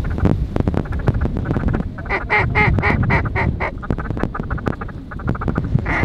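Duck quacking: a quick run of about eight quacks about two seconds in, over a steady low rushing noise.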